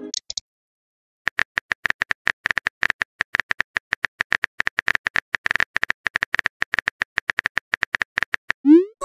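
Simulated phone keyboard typing sounds: a quick run of short clicks, roughly ten a second, starting about a second in as a text message is typed out. Near the end a short rising swoop, the message-sent sound.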